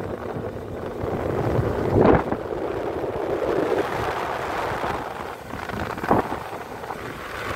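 Wind rushing over the microphone on a moving motorcycle, with two louder gusts about two seconds in and again near six seconds.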